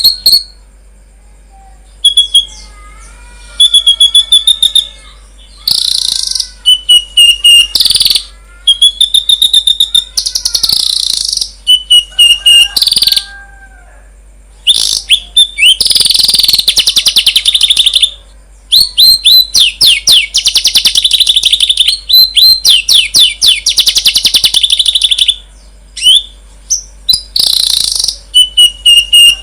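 Songbird song played as masteran, a tutor recording for captive songbirds. It comes in loud bursts of rapid high trills and chattering, mixed with clear whistled notes and short gliding phrases, with brief pauses between the bursts. The longest run of fast trilling comes about two-thirds of the way in.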